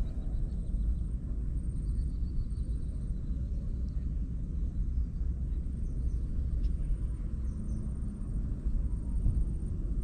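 Steady low rumbling outdoor background noise, with a few faint, short high chirps.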